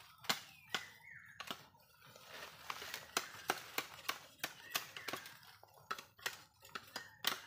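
Sharp, irregular knocks and cracks, about two a second, as a green bamboo pole is hacked with a machete and wrenched down.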